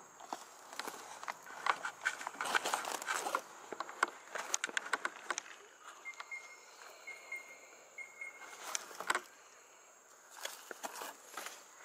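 Leaves and vine stems rustling and crackling in a hand as a plant is pulled up by the roots and handled, in irregular bursts, busiest in the first half and again near the end.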